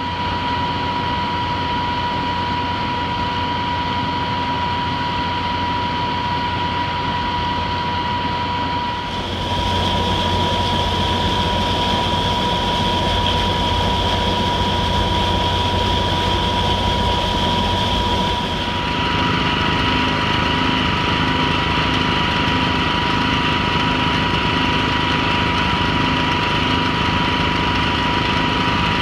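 Filter press machinery running steadily with a constant high whine. The sound shifts twice, about nine seconds in and again about nineteen seconds in.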